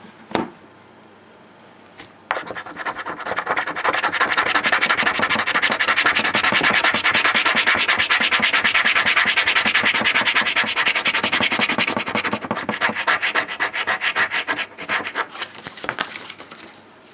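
A scratch card's silver panel being scratched off with fast back-and-forth scraping strokes, starting about two seconds in, strongest through the middle and turning patchier near the end.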